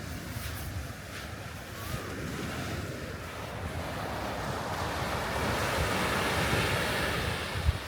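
Sea waves breaking on a beach, the surf swelling to its loudest about two-thirds of the way through, then falling away. Wind buffets the microphone throughout, with one sharp buffet near the end.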